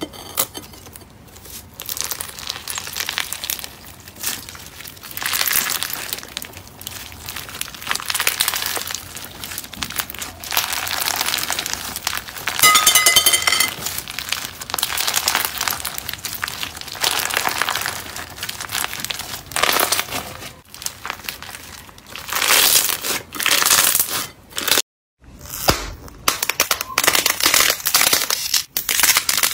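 Slime squeezed and stretched by hand, giving crackling, crinkling pops that come in repeated swells. The sound breaks off briefly about 25 seconds in and then picks up again.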